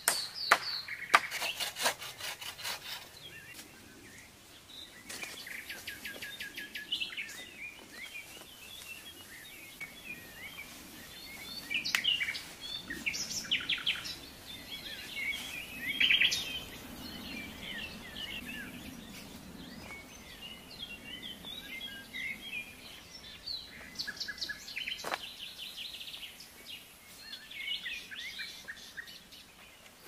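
A quick run of sharp hatchet strikes on wood in the first few seconds, then many birds singing and calling in woodland, with short chirps and trills overlapping, a few louder calls near the middle.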